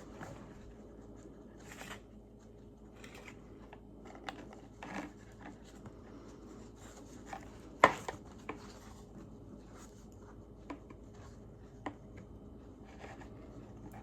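Soft rustling and scraping of string being handled and knotted around a holder, with a few small clicks and one sharp tap about eight seconds in.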